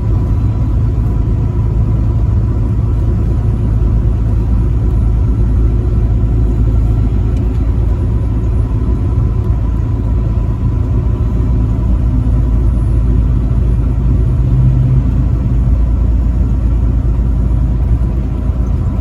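Truck driving at highway speed: a steady, loud low engine and road rumble.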